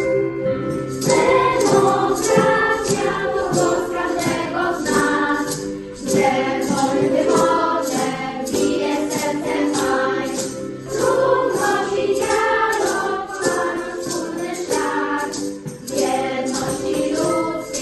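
Music: a group of voices singing over a steady beat, with crisp high percussion strokes about twice a second.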